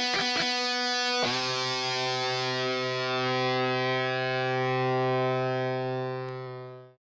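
Distorted electric guitar: fast picked notes, then a chord struck about a second in and left ringing, fading away near the end.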